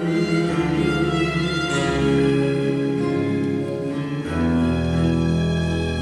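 Instrumental close of a romance played by a small ensemble: bowed strings, the double bass among them, holding long notes. A lower bass note comes in about four seconds in.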